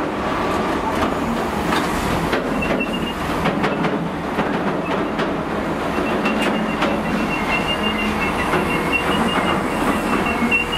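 Steel-coil freight wagons rolling past, wheels clicking over the rail joints in a steady rumble. A thin, high wheel squeal comes in briefly about two and a half seconds in and again from about six seconds on.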